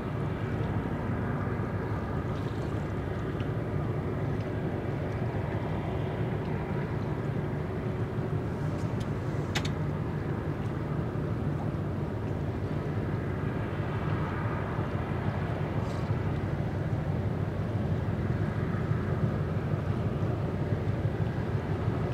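Steady low rumble of distant dockside and ship engine noise carried across the water, with one sharp click about nine and a half seconds in.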